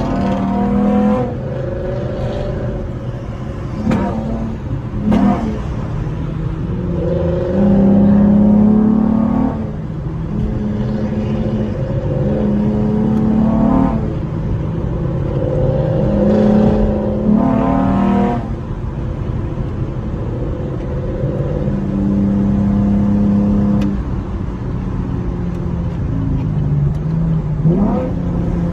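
Modified muscle car's engine and aftermarket exhaust under way: a steady drone broken several times by rising pulls as it accelerates.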